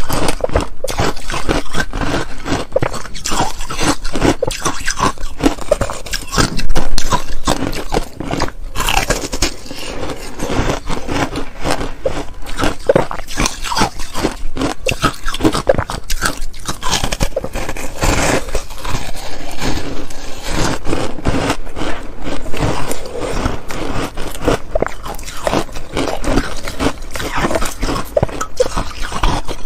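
Close-miked crunching and chewing of frozen ice bars: teeth bite and crack the ice in a dense run of crackles and scrapes, with one louder crunch about seven seconds in.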